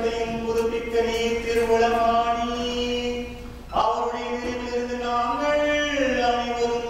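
A priest chanting a slow liturgical line at Mass, holding long steady notes, with a short break about four seconds in before the next phrase.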